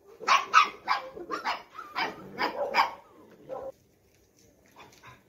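Dog barking in a rapid run of about eight or nine sharp barks over some three and a half seconds, then a couple of faint barks near the end.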